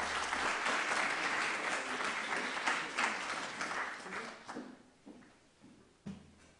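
Audience applauding, dying away about four to five seconds in.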